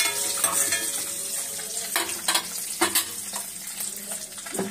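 Hot oil sizzling and bubbling in a metal kadai, with a steady hiss. A few sharp clicks and pops come about two to three seconds in and again near the end.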